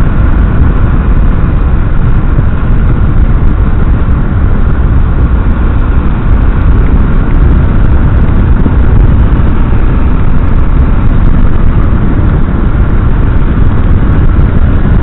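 A Yamaha Crosser 150 motorcycle cruising steadily on a wet road, heard as a loud, even wind rush on the microphone with the engine and tyre noise under it.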